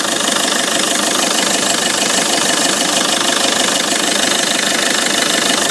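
2004 Peugeot 307's 2.0 HDi 136 four-cylinder turbodiesel running steadily with a strong hiss over the engine sound: an abnormal noise whose cause the owner does not know.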